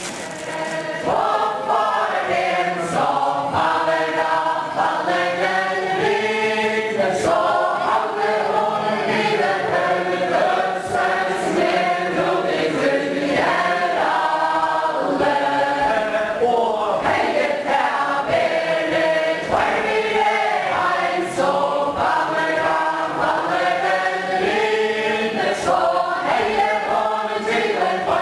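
A group of voices singing a Faroese ballad unaccompanied, the traditional song of the Faroese chain dance, with many people singing together in a steady rhythmic tune.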